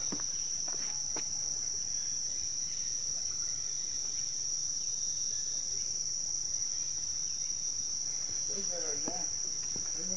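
Steady, high-pitched, unbroken chorus of rainforest insects. Faint voices come in near the end.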